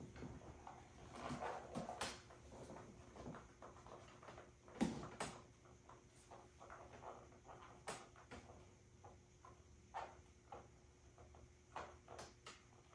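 Quiet room with faint, scattered soft taps and clicks from small movements, and one louder knock about five seconds in.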